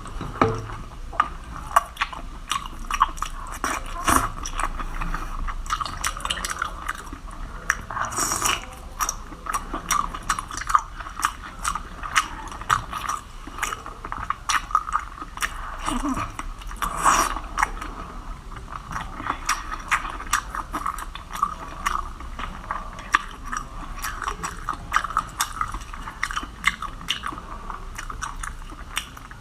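Close-up chewing and biting of seafood: continuous wet, crackling mouth sounds with many small clicks and crunches, a few louder bites now and then.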